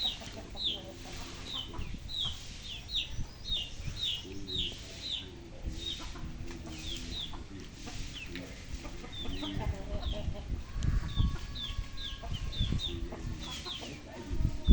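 Chickens clucking, low and broken, over a steady run of short, high, falling chirps, two or three a second.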